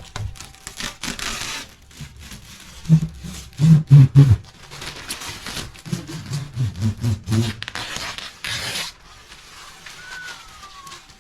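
Protective plastic film being peeled off acrylic panels: crackling and tearing, with several loud low thumps in the middle and a faint falling squeak near the end.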